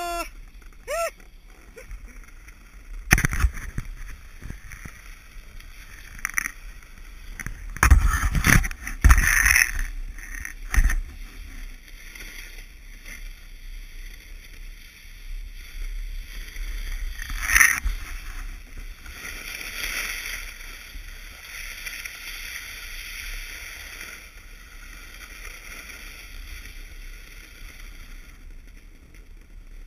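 Alpine snowboard carving down a groomed slope, its edges scraping on the snow. Several sharp knocks come through on the camera, the loudest about a quarter of the way in and again a little past halfway.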